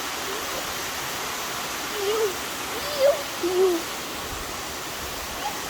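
Steady rushing of a waterfall, with a few short wavering calls rising and falling in pitch over it about two to four seconds in.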